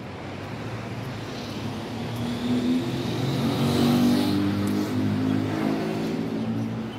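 A motor vehicle passing by, its engine note building to a peak about four seconds in and then fading away, over steady street noise.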